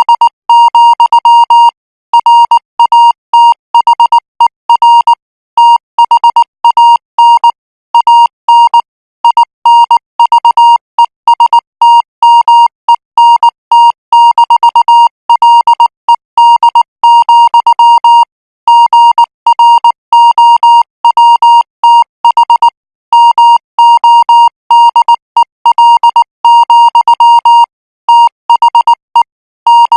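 Morse code practice signal: a single steady-pitched beep keyed on and off in dots and dashes at 18 words per minute, with short pauses between letter groups.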